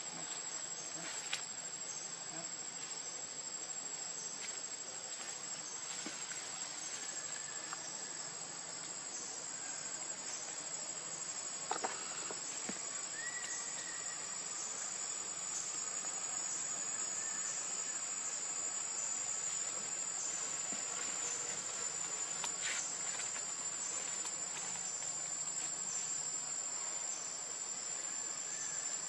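Steady, high-pitched chorus of forest insects, with a few faint clicks, the clearest one near the middle.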